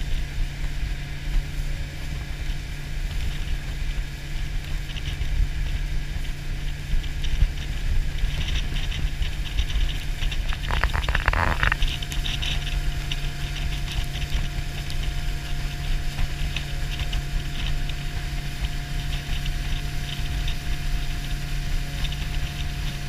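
Suzuki outboard motor on a Sea Pro 228 bay boat running at a steady cruising speed: a steady low hum under a continuous rush of wind and water.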